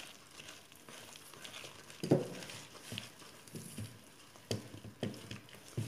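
A hand kneading and mixing a soft dough of butter, sugar, egg yolk and ground peanuts in a plastic bowl. It makes a series of irregular short sounds, the strongest about two seconds in.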